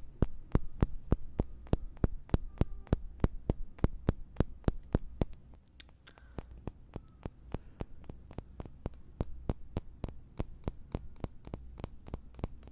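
Two small wooden blocks knocked together in quick, even taps, about four a second, for a sound-direction hearing test beside the ear. The taps are loud for about five seconds, then go on noticeably softer.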